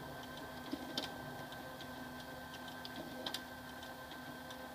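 HP Color LaserJet CP1025 printer's internal mechanism running: a steady motor hum with a faint whine and irregular light clicks, two louder clicks about a second in and after three seconds, the motor stopping near the end. The printer is working through a toner cartridge error, its toner warning light lit.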